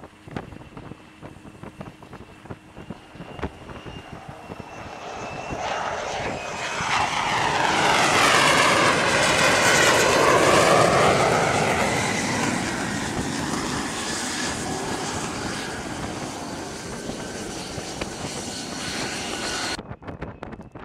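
F-35C fighter jet's F135 turbofan engine with a high whine, growing louder as the jet approaches the carrier deck. It is loudest about eight to eleven seconds in as it passes close by with a sweeping whoosh, then fades away. The sound changes abruptly near the end.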